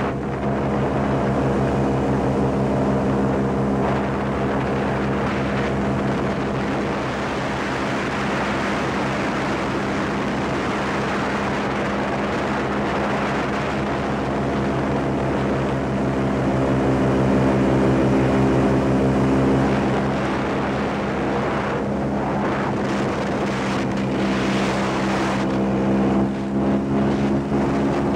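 Airboat's engine and large rear air propeller running at speed, a steady loud drone that swells a little for a few seconds past the middle.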